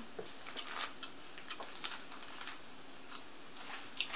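Faint, scattered light clicks and rustles from things being handled on a table, with a sharper click about four seconds in.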